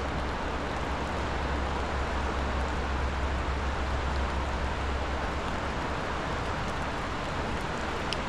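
Steady rushing noise of a river in flood, running high and fast, with a deep low rumble beneath it.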